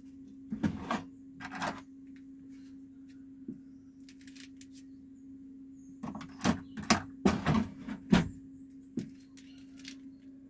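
Small measuring spoon tapping and scraping against plastic containers and the bread machine's pan while dry ingredients are measured out: a few light taps near the start, then a run of sharper knocks a little past the middle. A steady low hum runs underneath.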